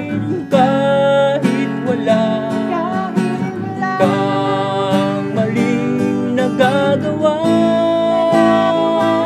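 Two acoustic guitars strummed while two men sing together, a long note held from about three-quarters of the way through.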